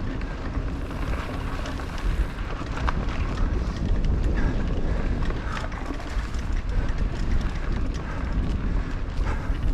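Wind rushing over a helmet-mounted microphone as a mountain bike rolls along a dirt singletrack trail, with tyre noise and scattered clicks and rattles from the bike over the ground.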